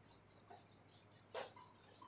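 Cloth duster wiping a whiteboard: faint repeated rubbing strokes across the board, with one sharp knock about one and a half seconds in.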